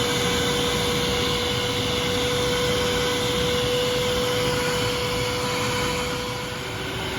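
Pet dryer running steadily: an even rush of blown air with a constant whine, which drops a little in pitch shortly before the end.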